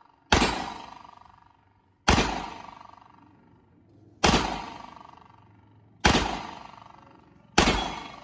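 Rock Island Armory Tac Ultra FS HC pistol firing five single shots, roughly two seconds apart, each echoing and dying away slowly. A steady ringing tone follows the shots, from hits on the steel plate target.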